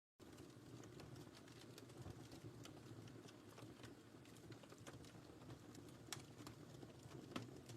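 Wood fire in a fireplace crackling softly: scattered sharp pops and snaps over a low steady rumble. The sound drops out completely for an instant at the very start.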